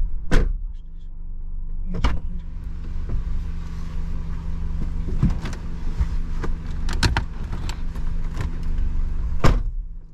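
Car idling with a steady low engine hum heard from inside the cabin, with scattered clicks and knocks of things being handled. A steady hiss comes in about two and a half seconds in and stops shortly before the end.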